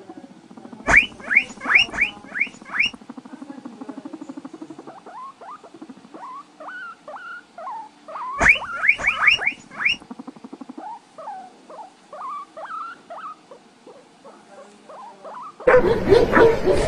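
Small animal squeaking: a run of five or six quick rising squeaks, heard twice, with softer scattered squeaks and chirps between, over a low buzz in the first few seconds. Near the end, louder dog whining and yipping cuts in.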